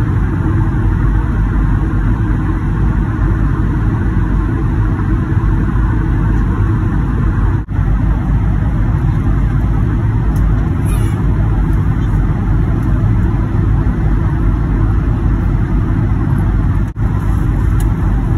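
Steady airliner cabin noise at cruise: the continuous rush of airflow and jet engines heard from inside the cabin. The level dips briefly twice, about eight seconds in and near the end.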